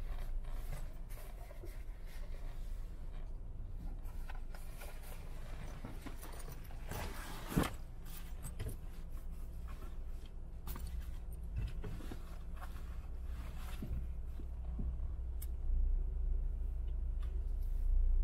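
Car cabin noise while driving slowly in traffic: a steady low rumble of engine and tyres, with scattered light clicks and one sharper click about seven and a half seconds in.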